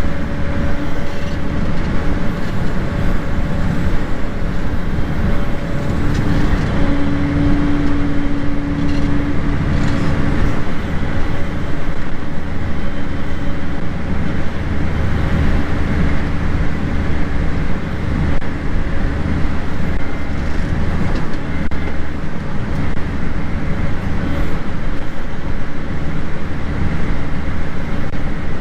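Farm tractor's diesel engine running steadily, with a constant low hum.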